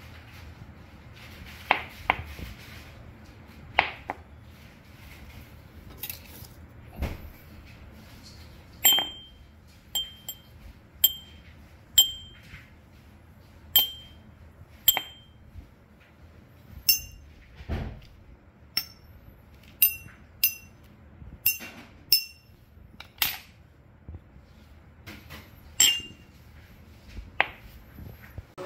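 A glazed ceramic soju cup and glass soju bottles being tapped and clinked: a few duller knocks at first, then from about a third of the way in a run of separate clinks, each with a brief high ring, about one a second.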